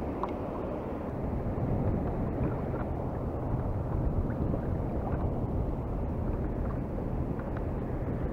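Steady rush of wind on the microphone mixed with water lapping against a fishing kayak's hull, with a few faint clicks.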